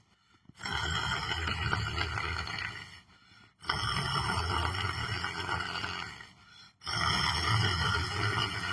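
A person snoring loudly in deep sleep: three long snores about three seconds apart, each starting abruptly and tailing off, with brief pauses between breaths.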